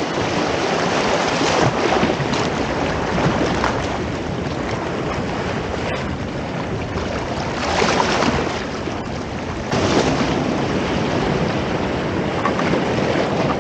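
Ocean waves washing and churning over shoreline rocks close by, a continuous rush of surf that swells louder three times as waves break in.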